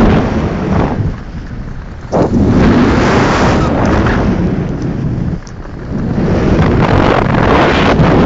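Loud wind rushing over a hand-held camera's microphone during a fast ski run, rising and falling in gusts, with a dip about a second in and another about five and a half seconds in.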